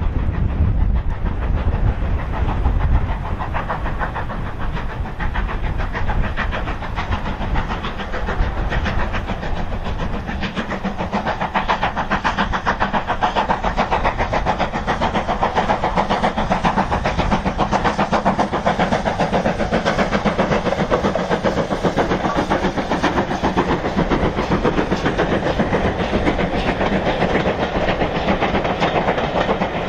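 Steam locomotive hauling a train of coaches approaching and passing, its rapid exhaust beats and running noise growing louder from about a third of the way in, then the coaches' wheels clattering over the rails as they roll by. A low rumble fills the first few seconds.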